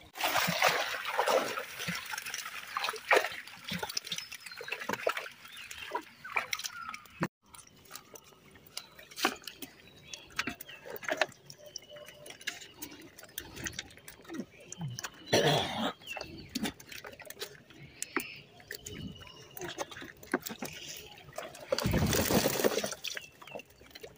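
Water splashing and streaming as a seine net full of fish is hauled out through shallow pond water. Then scattered wet clicks and slaps of fish being sorted by hand, and near the end a brief rush of water and fish poured from a bucket into a plastic crate.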